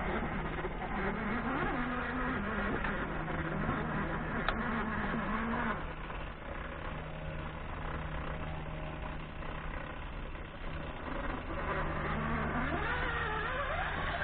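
Traxxas Summit RC truck's GoolRC 3674 1900kV brushless motor and drivetrain whining as it crawls over dirt, the pitch rising and falling with short bursts of throttle. Near the end the whine rises steadily as the truck speeds up.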